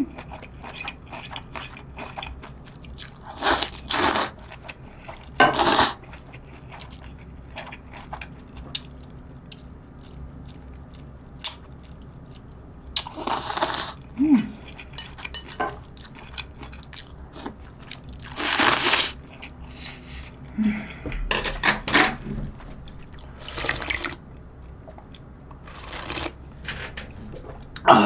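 A person slurping cold spicy noodle soup noodles, a series of long loud slurps several seconds apart, with chewing and small clicks of chopsticks against the bowl in between.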